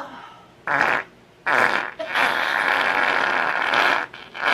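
A string of farts: two short blasts, then one long drawn-out fart lasting about two seconds, then another short blast near the end.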